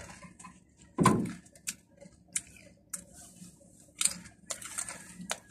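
A person crunching and chewing crisp Red Chili snack chips: irregular sharp crunches, the loudest about a second in.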